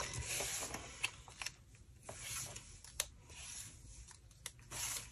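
Packaging rustling and a few light clicks and taps as small scrapbooking embellishments are handled and put aside.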